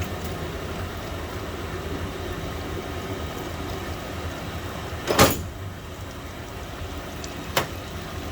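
Steady low hum of running shop machinery, with one sharp knock about five seconds in and a lighter click near the end.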